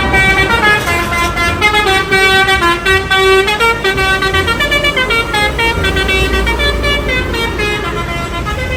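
Bus telolet horn, a multi-tone musical horn, playing a tune of quickly changing notes, with a low engine rumble underneath.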